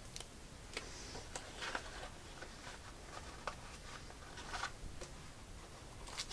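Cardboard packaging and paper inserts being handled and set down: scattered, irregular light taps and clicks with brief rustles.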